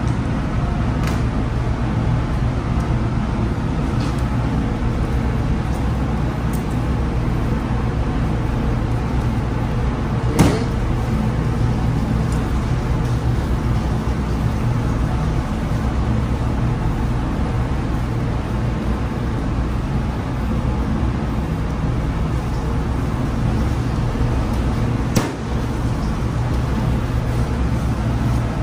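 Steady low drone of running machinery, with a constant low hum throughout. Two sharp knocks stand out, one about ten seconds in and one near the end.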